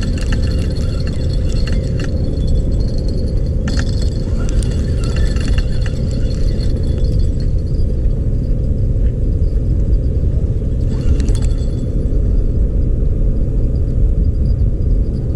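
Wind buffeting the microphone as a steady low rumble, with bouts of light rattling clicks from a spinning reel being cranked, about four to five seconds in and again near eleven seconds.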